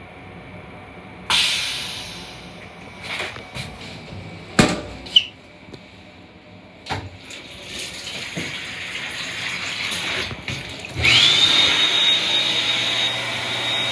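Restroom fixtures of a Long Island Rail Road M7 railcar: a sudden rush about a second in that fades, several sharp clicks and knocks, then water running at the sink. About eleven seconds in a motor starts with a loud rush and a whine that rises fast and then holds steady.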